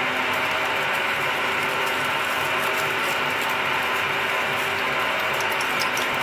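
Milling machine spindle driving a 40 mm twist drill through a workpiece: a steady, unbroken grinding cutting noise with a dense fine rattle and many small clicks.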